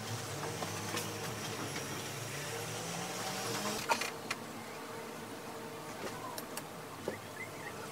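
Steady low background hum with a few light clicks and rustles from hands working upholstery strings through a sofa's foam and fabric cover.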